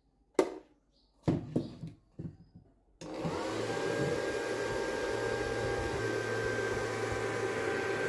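A few clicks and knocks as the plastic box is handled, then about three seconds in a homemade vacuum cleaner's small DC motor and fan switch on, spinning up quickly to a steady whine with a rush of air. It runs over a pile of rice grains and sucks them up.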